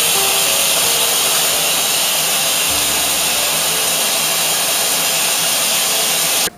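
Shower running: a loud, steady hiss of water spray, with faint music notes beneath it. It cuts off abruptly near the end.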